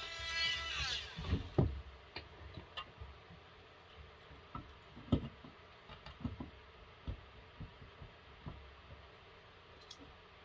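Scattered faint knocks and clicks, as of metal parts and tools being set down and handled on a bench, with a plucked-guitar chord fading out in the first second.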